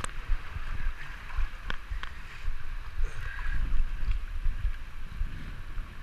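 Water sloshing and lapping as a person wades through a canyon pool, with a rumble of water moving against the body and camera, a few sharp clicks about two seconds in, and a steady rush of water behind.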